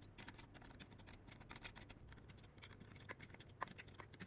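Faint, irregular small clicks and taps of an electronic door lock's outside handle and cylinder parts being handled and fitted together.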